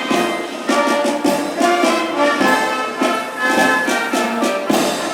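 Brass band music playing loudly with a steady beat.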